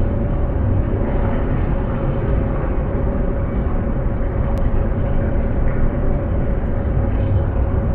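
Steady low rumble of outdoor city ambience, with a constant mid-pitched hum running through it.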